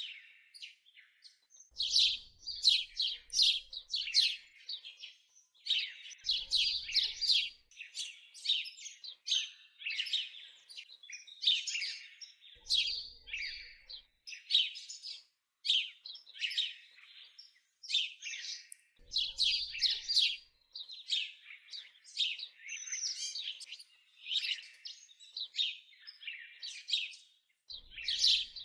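Small songbirds chirping and twittering in a dense, continuous run of short high calls, with brief pauses between phrases.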